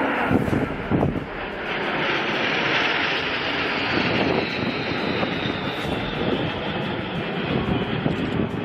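A formation of JL-8 jet trainers flying past: a steady jet roar that swells about two seconds in and slowly fades, with a few low thumps near the start.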